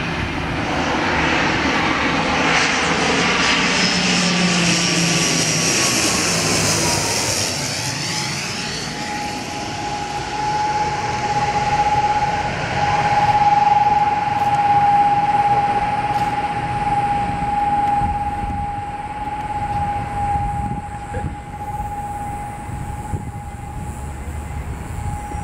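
ATR 72-600 turboprop airliner with its two Pratt & Whitney PW127 engines passing close overhead on landing approach: a loud rushing engine and propeller sound that sweeps down in pitch as it goes by, then a steady high whine as it descends toward the runway.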